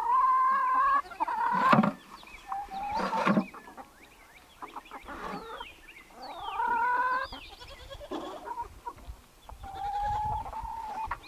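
Domestic hens clucking and giving drawn-out calls, several of them about a second long, with quieter stretches between.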